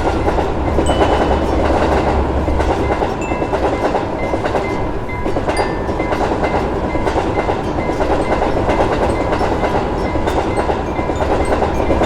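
Train running past at a steady pace, its wheels clattering over the rail joints with a continuous rumble.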